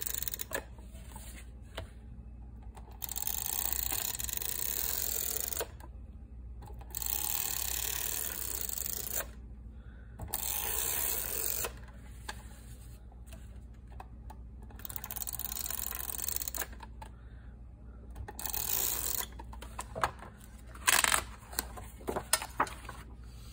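Hand-held tape runner drawn repeatedly along the edges of paper, each stroke a second or two of dry whirring with short pauses between, and a few sharper clicks near the end.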